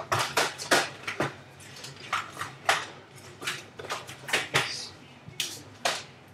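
An irregular series of sharp clicks and knocks, about a dozen over six seconds, each short and hard-edged like small objects being handled or struck.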